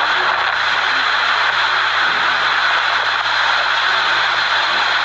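Tornado winds making a loud, steady rushing hiss as debris blows past.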